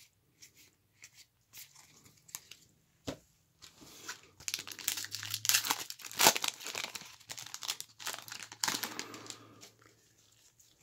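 A Topps XFL trading card pack wrapper being torn open and crinkled by gloved hands, with a few light clicks of cards being handled first, then several seconds of dense tearing and rustling.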